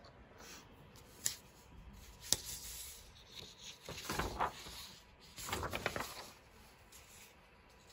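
Printed paper sheets being handled and rustled: two sharp clicks a second apart, then two short spells of paper rustling.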